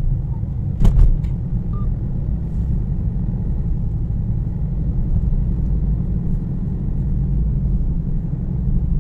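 Steady low rumble of a car's engine and tyres heard from inside the cabin while driving. A few sharp knocks come close together about a second in.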